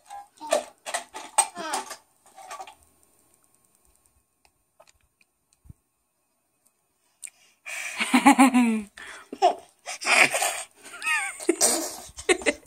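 Laughing and giggling in short bursts in the first couple of seconds, then several seconds of near silence, then a longer run of loud laughter with rising and falling pitch over the last five seconds.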